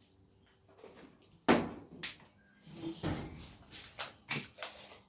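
Steel garage-door coil springs being handled: a sharp clunk about one and a half seconds in, then a run of smaller knocks and clicks.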